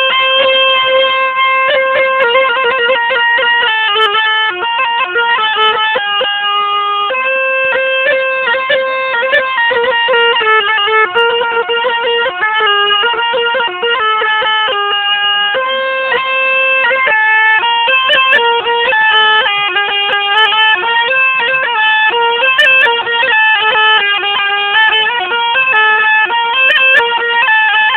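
Zurna playing a fast, ornamented folk melody without a break, its reedy tone held continuously through quick runs of notes.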